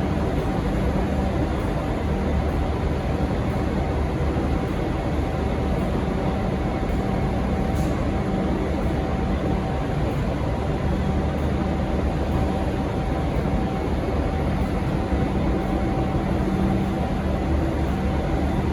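V/Line N class diesel-electric locomotive idling at the platform: a steady low engine rumble with a constant hum, unchanging throughout.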